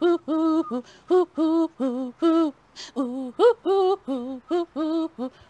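A woman's voice chanting in a sing-song: short syllables held on a few level pitches, with brief pauses between phrases.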